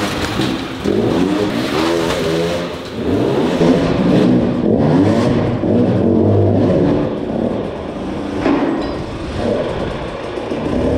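Enduro motorcycle engine revving up and down over and over, its pitch rising and falling with each twist of the throttle. There is a sharp clack about eight and a half seconds in.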